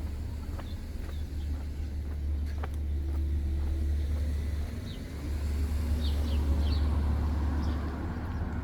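Outdoor ambience: a steady low rumble, with a few short high bird chirps about six seconds in.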